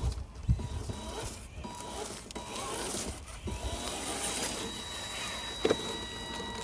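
Electric motor and gearing of a 1/10-scale RC crawler whining steadily as the truck crawls over rock and gravel, with a sharp knock about five and a half seconds in.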